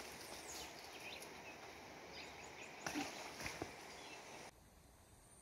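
Faint riverside outdoor ambience, a steady hiss with a few soft knocks of footsteps on rock and in shallow water. About four and a half seconds in it drops abruptly to a much quieter background.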